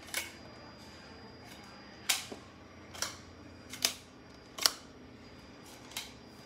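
Small plastic toy suitcase from a Barbie doll set being snapped open and shut by hand: six sharp plastic clicks at irregular intervals, roughly a second apart.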